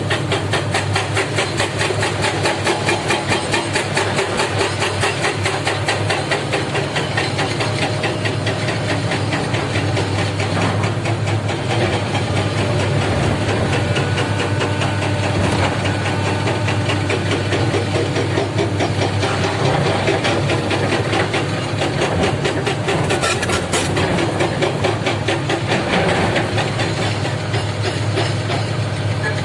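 Komatsu PC300 excavator's diesel engine running steadily with a fast, even pulse, with a couple of brief knocks midway and later on.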